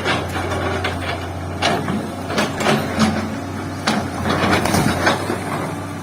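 Komatsu excavator's diesel engine running steadily, with irregular metallic knocks and clanks from the working machine every half second to a second.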